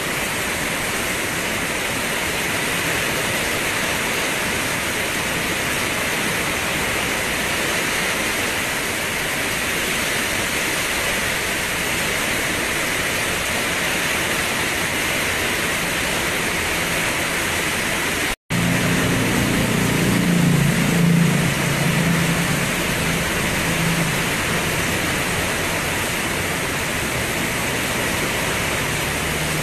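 Steady rain falling, an even hiss. About two-thirds of the way in the sound cuts out for a split second, then a low rumble rises under the rain for a few seconds and fades.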